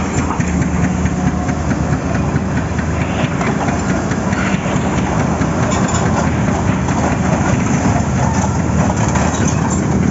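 Excavator's diesel engine running steadily under a dense, rapid clatter.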